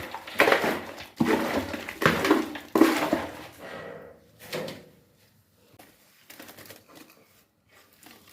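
Four heavy knocks about one every 0.8 s, each with a short ringing tail, followed by faint small clicks and handling sounds.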